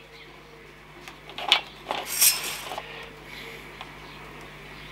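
Curved hook blade scraping and cutting through 3mm PVC Foamex board under light pressure, in a few short scratchy strokes about a second and a half and two seconds in, then fainter scraping.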